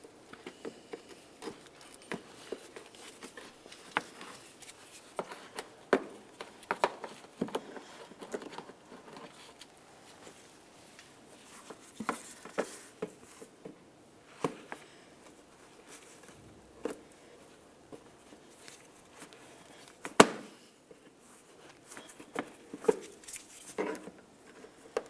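Plastic push clips being pried out of a plastic inner fender liner with a trim tool: scattered clicks and snaps, with the sharpest snap about three-quarters of the way through.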